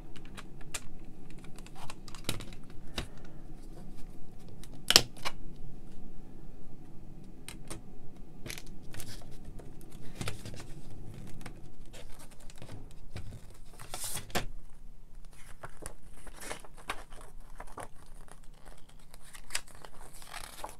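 Plastic CD jewel case being handled and opened, with scattered clicks and taps of the case and a sharp snap about five seconds in. In the second half the paper lyric booklet rustles as its pages are turned.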